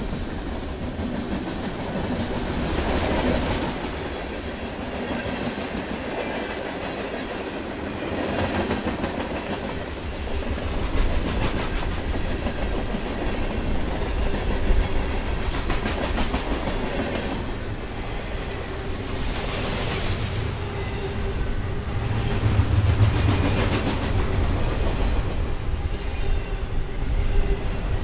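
Freight train cars, loaded gondolas and double-stack container well cars, rolling past: a steady rumble of steel wheels on rail with a clickety-clack of wheels over rail joints. A brief high-pitched wheel noise comes about two-thirds of the way through.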